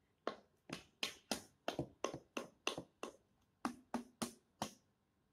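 About a dozen sharp taps at a steady pace of roughly three a second, with a short pause a little past halfway, stopping near the end.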